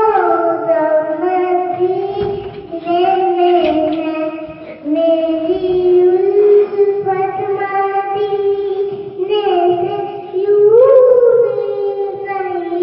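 A young girl singing a naat unaccompanied, in long held notes that slide between pitches, rising to a loud high phrase near the end.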